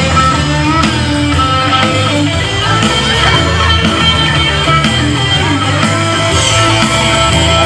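Live rock band playing, with guitar to the fore.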